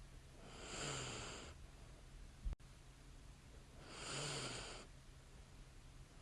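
A sleeping woman breathing slowly with light snoring: two breaths about three seconds apart, each lasting about a second with a brief low snore at its start. A single sharp click comes between them.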